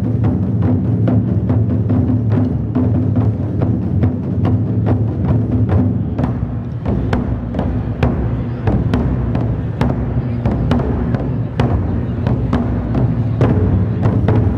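Large Chinese barrel drums struck with sticks by an ensemble of drummers in a rhythmic pattern, over sustained low tones of instrumental accompaniment.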